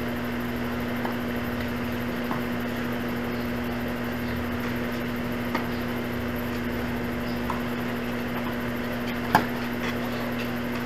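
Tennis ball being struck by rackets and bouncing on the court during a rally: a few short sharp pops at uneven gaps of one to three seconds, the loudest near the end. A steady low hum runs underneath.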